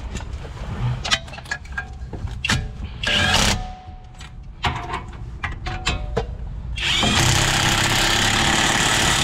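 Metal clanks and knocks of parts and tools being handled at the hub, then about seven seconds in a cordless impact gun runs steadily for a couple of seconds, spinning in the hub bearing bolts.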